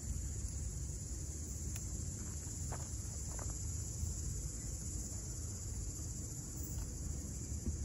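Steady chorus of summer insects, a high even drone, over a steady low rumble.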